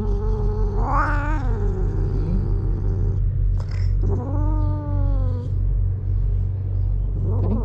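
A cat giving long, drawn-out yowls: two in a row, with a third starting near the end, over a steady low rumble.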